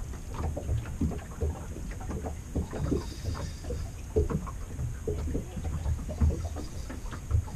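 Water lapping and slapping against the hull of a small boat in irregular knocks, over a low rumble.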